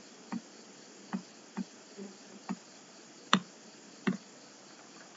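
Computer mouse clicking: about seven short, sharp clicks at uneven intervals, the loudest a little over three seconds in, over a faint steady hiss.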